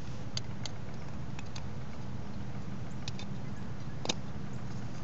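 Scattered light clicks of a knife blade working the thin aluminium wall of a Foster's beer can, slitting and tearing it away from the cook-pot ring, the sharpest click about four seconds in. A steady low hum runs underneath.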